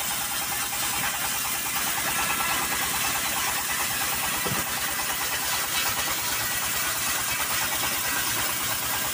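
Homemade sawmill's engine running steadily, with a rapid low throb under a constant mechanical hum.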